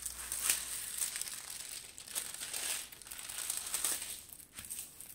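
Clear plastic protective film on a diamond painting canvas crinkling as it is laid back down over the canvas and smoothed flat by hand, rustling on and off.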